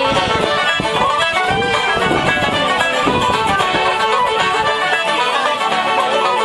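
A group of traditional Irish musicians playing a tune together on fiddles, tenor banjo, button accordion, flutes and guitars, steady and unbroken.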